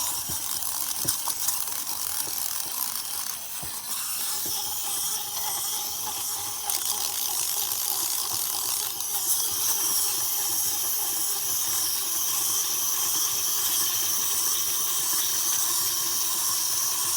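Clockwork motors of small plastic wind-up toys whirring and clicking as the figures walk, over a steady hiss.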